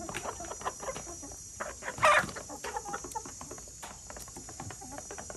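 A flock of hens and roosters clucking while feeding, a busy run of short calls with one loud call about two seconds in.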